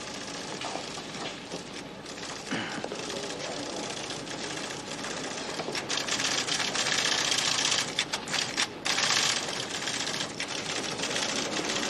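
Office computer printer clattering rapidly and continuously, a typewriter-like rattle of keys striking, getting louder about halfway through.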